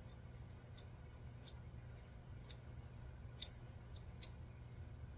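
Light metal clicks and ticks of small spinning-reel parts being handled and fitted together with a small tool, about six irregular clicks over a low steady hum.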